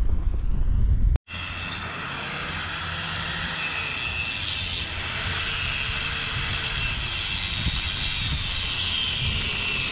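Angle grinder grinding on a steel rail at a copper rail bond: a steady grinding hiss with a high whine that wavers in pitch as it is pressed in. Before it, for about the first second, wind rumbles on the microphone and stops abruptly.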